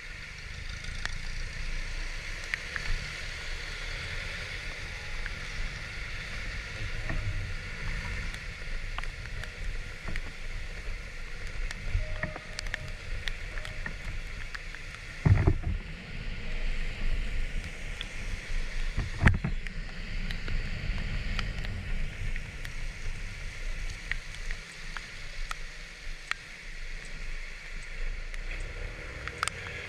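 Kymco Like 125 scooter riding on a wet road: a steady rush of engine, wind and tyres on wet tarmac, with two loud thumps about halfway through, a few seconds apart.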